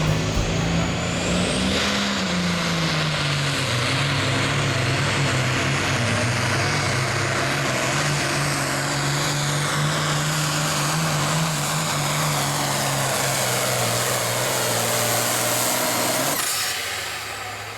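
Super Farm class pulling tractor's diesel engine at full throttle through a pull, with a steady heavy drone and a high whistle that rises in the first couple of seconds. About a second before the end, the engine suddenly drops off as the throttle is cut at the end of a full pull.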